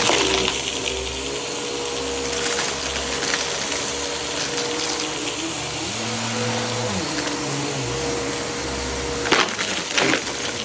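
Vacuum cleaner running steadily as it picks up debris from the floor: a constant motor whine over rushing air. A couple of sharp knocks come near the end.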